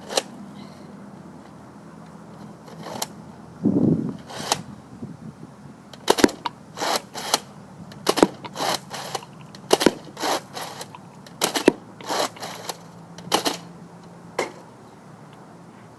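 Nerf Mega Centurion blaster being worked and fired: a series of sharp plastic clacks and clicks at irregular spacing, some in quick pairs, with a duller thump about four seconds in.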